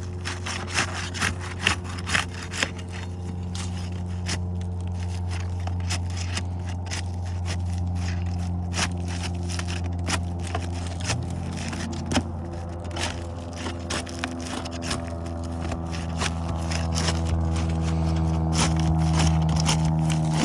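Repeated scraping, rubbing and sharp cracking as an asphalt shingle is pried loose to break its sealant strip, over a steady low engine-like hum.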